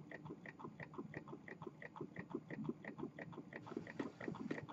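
Small square low-temperature-differential Stirling engine running, its moving parts giving a faint, even ticking about three times a second, with lighter ticks in between.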